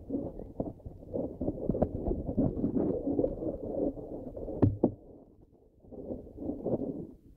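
Muffled rubbing and knocking of hands on a handheld camera's microphone as it is carried about, with a sharper knock about four and a half seconds in.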